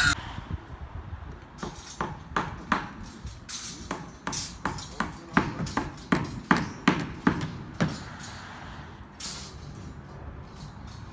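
A hammer striking metal: a quick run of sharp, ringing blows, about three a second, starting about a second and a half in and stopping about eight seconds in.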